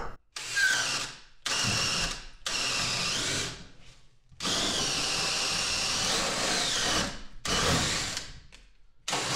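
DeWalt cordless drill turning a long spade bit through wooden studs, run in about six bursts with short stops between. Its motor whine dips and recovers as the bit loads up in the wood.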